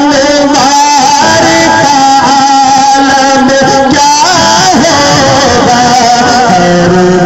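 A man's voice singing a naat (devotional poem), drawing out long wavering notes with slow glides between them, amplified through a microphone.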